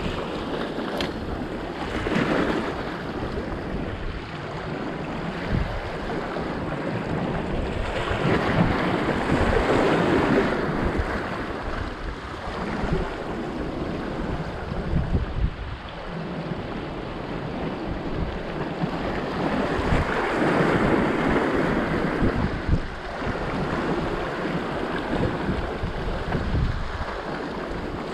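Sea waves washing in over a rocky shore, the surf swelling louder a few times and easing between, with wind gusting on the microphone.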